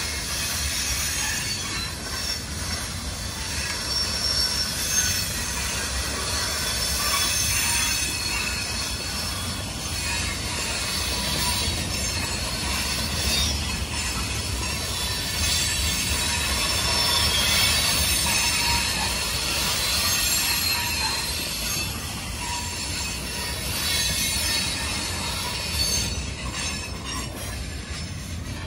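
A moving train's steel wheels squealing against the rails, several high wavering tones held over a steady low rumble.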